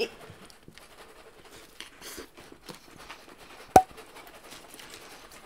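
A small carton of milk being shaken hard, with faint sloshing and knocking of the liquid inside, over light scraping. One sharp metallic clink with a brief ring stands out a little before four seconds in.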